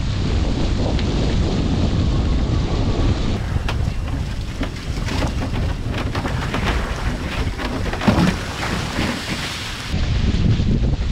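Wind buffeting the microphone in a steady low rumble aboard a foiling A-Class catamaran sailing at high speed. From about three and a half seconds in until near the end, a brighter hiss with crackling water spray joins it, with a single thump about eight seconds in.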